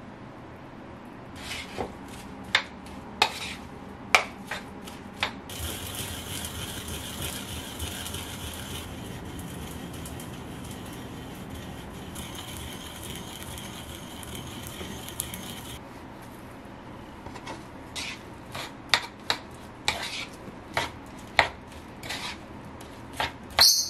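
Sesame seeds ground with a pestle in a small mortar: a steady gritty scraping for about ten seconds in the middle. Before and after it come sharp clicks and knocks of utensils against bowls, the later ones a wooden spoon tapping a wooden bowl as a dish is mixed.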